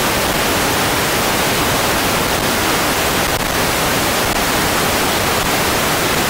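Loud, steady static hiss, even from the deepest to the highest pitches, with no other sound standing out: noise on the audio track, not a sound from the scene.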